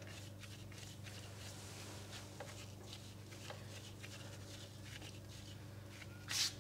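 Faint soft rubbing and patting of hands rolling sticky curd dough into a log, over a steady low hum. Near the end, louder rubbing strokes begin.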